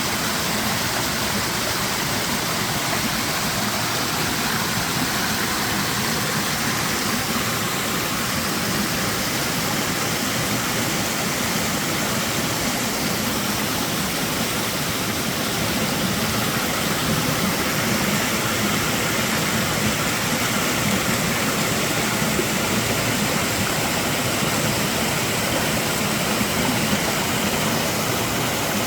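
Flowing water rushing steadily, an even noise without a break.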